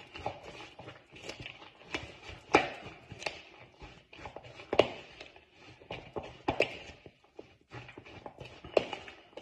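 A utensil stirring shredded red cabbage slaw with mayonnaise in a plastic bowl. It gives a run of light taps and scrapes against the bowl, with a sharper knock about every two seconds.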